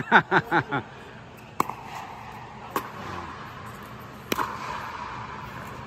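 Pickleball paddles striking the ball three times in a rally: sharp pops about a second to a second and a half apart, the last one echoing, over a steady background hum.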